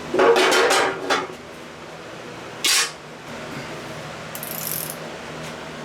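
Hand tools and metal engine parts clicking and rattling during teardown of a Cummins 4BT diesel's bottom end: a dense run of ratchet-like clicks for about a second, then a single sharp clink a couple of seconds later and a brief high hiss.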